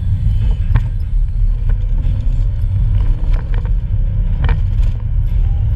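Engine and road rumble inside the cabin of an Audi Coupe GT driving on a rough dirt track, with several sharp knocks as the car jolts over the uneven ground.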